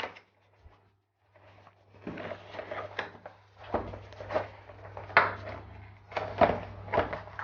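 Cardboard product box being opened and handled: a string of short scrapes, taps and rubbing sounds, starting about two seconds in.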